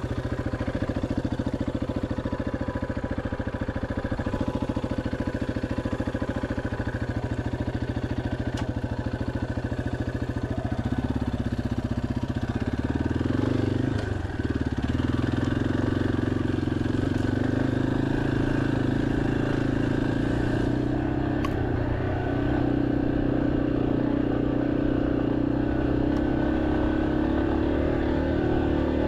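Single-cylinder four-stroke engine of a 2023 Yamaha XT250 dirt bike running at low revs, then picking up speed about eleven seconds in. A brief dip comes about fourteen seconds in, after which it runs steadily at a higher note.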